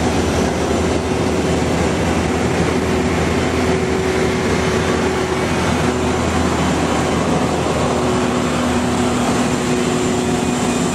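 Steady, loud apron noise beside a parked Boeing 777-300ER: a constant jet-turbine roar with a thin high whine and low steady hums, the running noise of the parked airliner's power and air supply during boarding.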